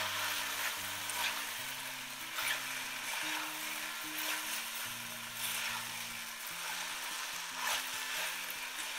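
Rice and vegetables sizzling in hot oil in a pot while a spatula stirs them, with a scrape of the spatula against the pot every second or two.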